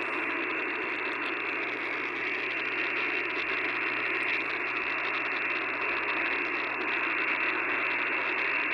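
Steady static hiss from an Icom IC-705 HF transceiver's speaker, tuned to 14.300 MHz upper sideband with no station transmitting. The hiss is cut off sharply above the narrow voice passband of the receiver's filter, so it sounds thin and band-limited.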